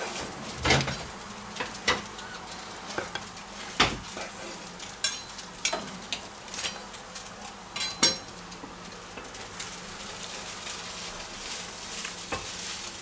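Carving knife cutting through the crisp crackling of a pork roast on a wooden board: a series of sharp, irregular crunches and knocks for the first eight seconds or so, then only a faint hiss with one last knock near the end.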